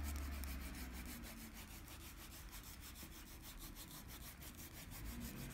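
A small piece of loofah pinched around a leather edge and rubbed quickly back and forth to burnish it, pressing the edge fibres down. A faint, rhythmic rubbing, a little louder at the start.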